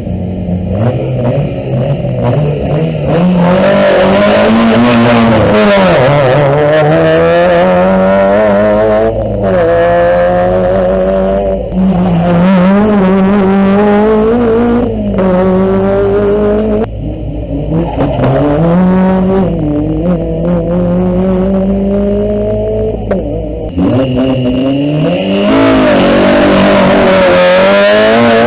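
Rally car engine running at high revs, its pitch climbing and then dropping sharply several times as it accelerates, shifts and slows.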